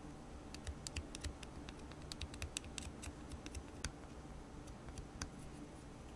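Flat metal spatula scraping and tapping against the back of a plastic doll eye, giving a run of small irregular clicks and scratches that stops about five seconds in.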